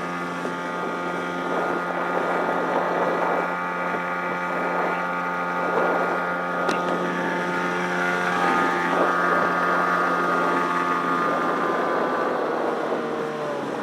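9.8 hp Tohatsu two-stroke outboard running at full throttle, pushing a small bass boat at planing speed, with hull and water rush and wind on the microphone. Near the end the engine note starts to drop as the throttle is eased off.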